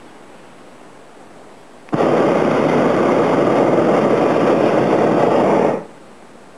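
Hot air balloon's propane burner firing in one blast of about four seconds, a loud steady rush that starts and cuts off abruptly, heating the air in the envelope to gain height.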